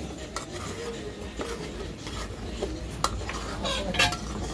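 A metal spoon stirring thick sauce in an aluminium saucepan, scraping the pot and clinking against its side, the loudest clink about four seconds in.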